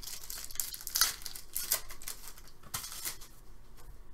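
Foil wrapper of an Upper Deck SP Authentic hockey card pack crinkling and tearing as it is opened by hand, in several short rustling bursts, the loudest about a second in. Near the end come lighter sounds of cards being handled.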